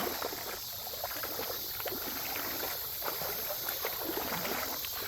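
Creek water running, with irregular small splashes and clicks through a steady rushing hiss.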